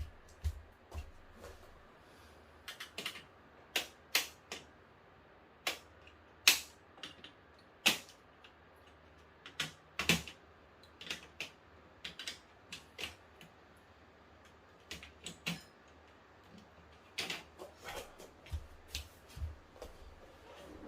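Irregular sharp clicks and taps from TV backlight parts being handled by hand, coming singly or in quick clusters with short pauses between.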